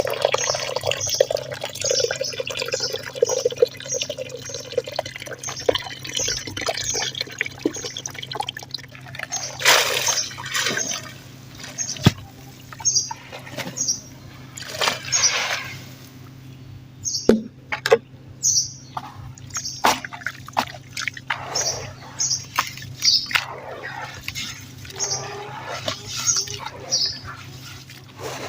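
Chunks of dirt being crumbled by hand: irregular crunching and crackling, with a few sharp snaps.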